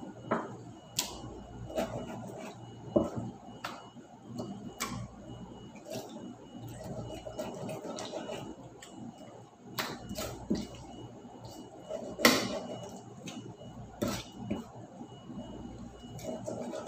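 Dishes being washed by hand at a kitchen sink: irregular clinks and knocks of dishes and utensils being handled and set down, over a low clatter of scrubbing.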